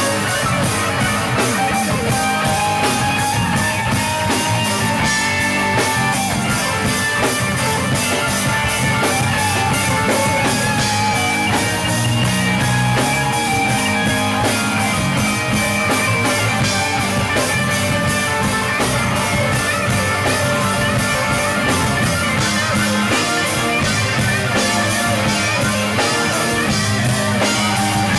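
Live rock band playing: guitars through an amplifier over a drum kit, with a steady beat.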